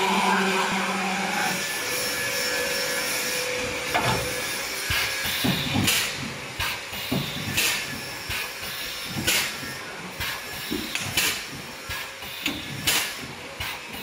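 Double-head CNC wire-mesh welding machine at work. Its pneumatic welding heads come down and release on the mesh in short, sharp strokes with air hisses and thumps, about one or two a second, irregularly spaced. Near the start a steady machine hum sounds, and it fades out within the first two seconds.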